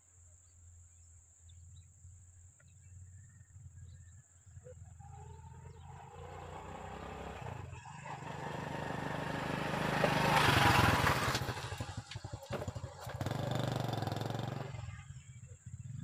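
A motor vehicle's engine passing by: a low rumble that builds over several seconds, is loudest about ten seconds in, then fades away.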